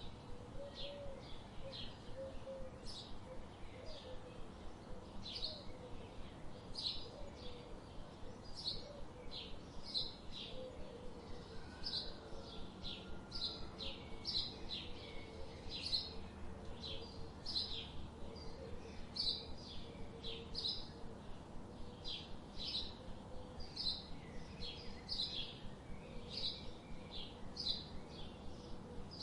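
Songbirds chirping: short, high chirps repeat in a steady run, one or two a second, with a fainter, lower warbling call running underneath.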